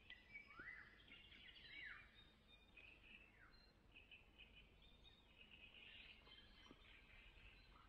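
Faint chorus of several kinds of songbirds singing together: a mix of quick chirps, trills and sweeping whistles, with the clearest sweeps in the first two seconds.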